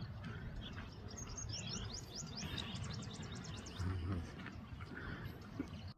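Songbird singing: a quick trill of high, falling chirp notes about a second in, with scattered single chirps around it. A low rumble runs underneath, with a low thump about four seconds in.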